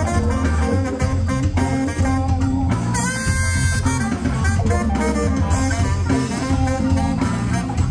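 Upbeat band music with horns, guitar and a drum kit, playing steadily throughout.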